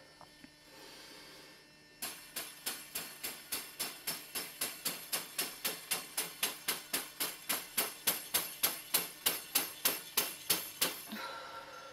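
A covered Healing Broom slapping repeatedly against the top of a person's head: a steady run of sharp slaps at about three a second, starting about two seconds in and growing louder before stopping near the end.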